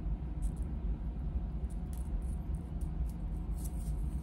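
Light, scattered clicks and clinks of costume jewelry being handled and sorted, over a steady low hum.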